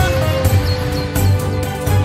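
Background music with a steady beat under sustained tones.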